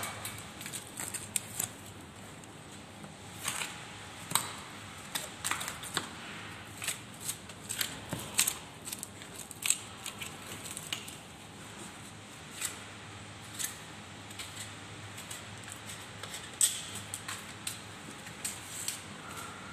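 Butcher's boning knife cutting through a beef shoulder: irregular sharp clicks and short scrapes as the blade works against bone, over a faint steady low hum.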